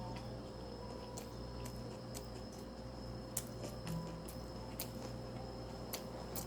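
Close-up chewing of gimbap: scattered soft, wet mouth clicks and smacks, irregular, about one or two a second, over a steady background hum.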